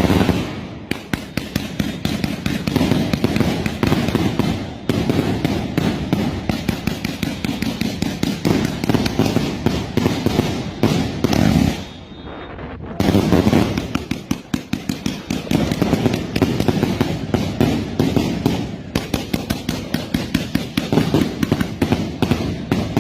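Fireworks going off in dense, continuous volleys of sharp cracks and bangs with a rumble of many distant ones beneath, easing briefly about halfway through before starting up again.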